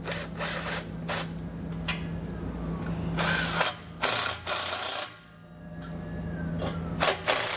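Milwaukee M18 cordless driver running in several short bursts, driving the screws of worm-gear hose clamps tight. The longest burst, about a second, comes near the middle, and a steady low hum sits under it.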